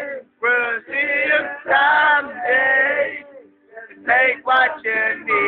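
Several young men singing loudly together in short chanted phrases, with brief breaks between lines.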